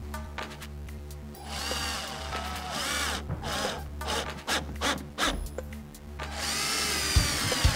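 Cordless drill-driver driving screws into plywood: two runs of a whining motor that rises and falls in pitch, one starting about a second and a half in and a second near the end.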